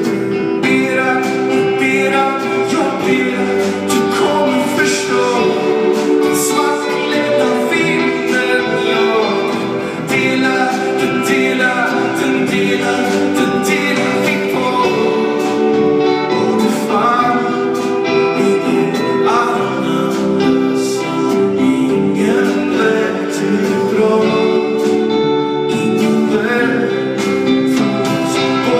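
Live band playing a song: a sung lead vocal over guitars, with a drum kit and keyboard.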